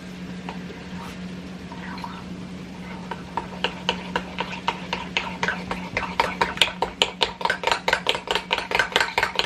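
A utensil stirring thick grits in a pot, clicking against the pot in quick regular strokes of about five a second that start a few seconds in and grow louder. A steady low hum runs underneath.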